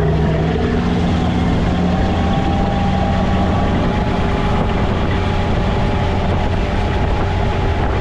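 5.7 MerCruiser small-block V8 sterndrive engine running loud and steady as the deck boat is opened up to speed.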